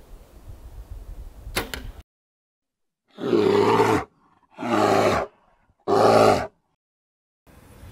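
Three separate roars of a large animal, a sound effect, each just under a second long with short gaps between them. A sharp click comes just before them, about a second and a half in.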